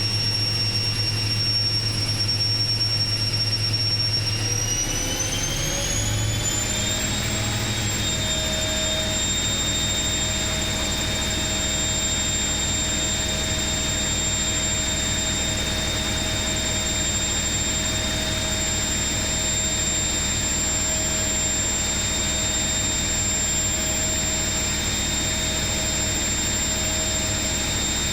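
Atlant 70U1010-00 front-loading washing machine on its spin cycle: the drum motor's whine rises in pitch as the drum speeds up about four to seven seconds in, then holds a steady high whine at full spin speed over a constant low hum.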